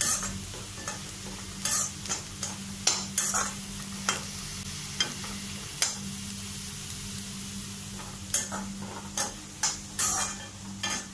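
A perforated metal spatula scraping and stirring in a kadai at irregular intervals, while chopped orange peel fries in sesame oil with a steady sizzle. The peel is being sautéed until it softens and shrinks. A low steady hum runs underneath.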